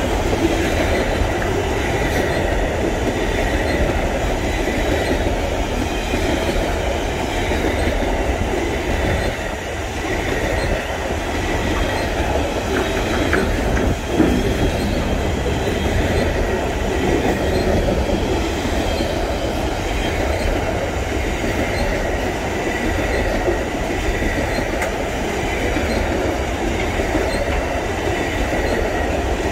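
Covered pulp wagons of a freight train rolling past close by: a steady rumble and clatter of steel wheels on rail, with a faint high wheel squeal that comes and goes. There is a single short knock about halfway through.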